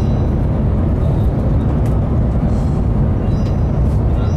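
Cabin noise inside a high-speed train running at about 270 km/h: a steady low rumble, with a few faint clicks.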